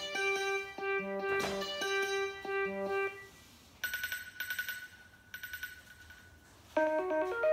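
iPhone ringtones playing one after another: a plucked, guitar-like melody ends about three seconds in, then a fast trilling phone ring comes in two bursts, and a new plucked melody starts near the end.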